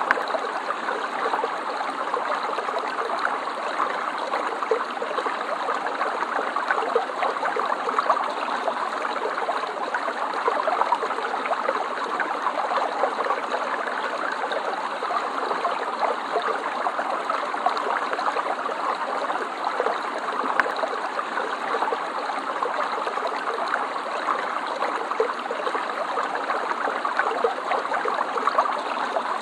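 Water flowing in a stream, a steady babbling rush with a fine, flickering trickle texture.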